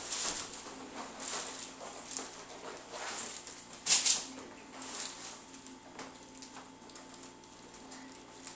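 Rustling and handling noises of a child being positioned and adjusted on a chiropractic treatment table: a run of soft, short hissy rustles, with one louder, sharper rustle about four seconds in.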